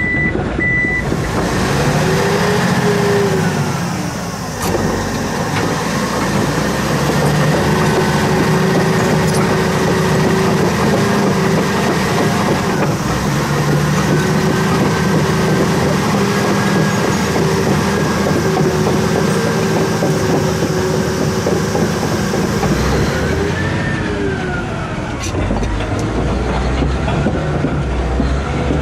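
Komatsu D155AX bulldozer's diesel engine running steadily, revving up and dropping back a few seconds in and again near the end. A reversing alarm beeps briefly at the start.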